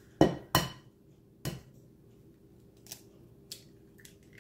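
An egg tapped against the rim of a glass mixing bowl to crack it: two sharp knocks in quick succession, a third about a second later, then a few faint ticks.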